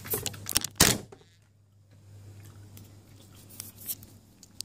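A drinking glass being set down on a table: a few short knocks and rustles in the first second, the loudest just before the one-second mark, followed by faint handling clicks.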